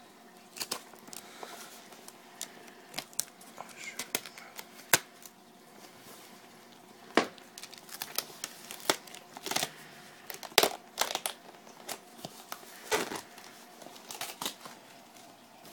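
Clear plastic packing tape being picked loose, pulled off and pressed down onto a cardboard shipping box, giving irregular crinkles, crackles and short tearing snaps.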